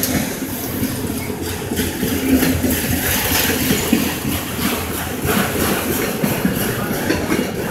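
Autorack freight cars rolling past close by: steady noise of steel wheels on rail with irregular clacks and rattles from the cars.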